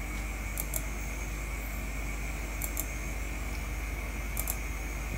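Computer mouse clicking: three pairs of quick, sharp clicks, spaced roughly two seconds apart, over a steady hum and hiss.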